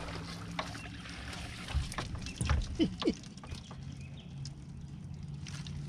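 Hooked largemouth bass splashing at the water's surface beside the boat as it is played in and a landing net is dipped under it, with water trickling and a few sharp knocks about two to three seconds in. A low steady hum runs underneath.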